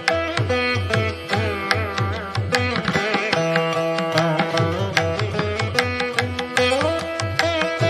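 Background instrumental music in Indian classical style: a plucked string instrument playing quick runs of notes over a held drone, with drum strokes keeping a steady beat.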